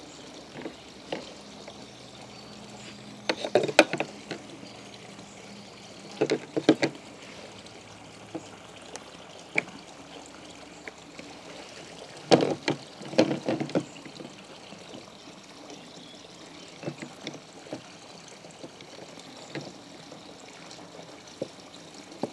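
Small plastic wiring connectors and their cables being handled and pushed together, with clicking and rustling in a few short bursts over a steady low hiss.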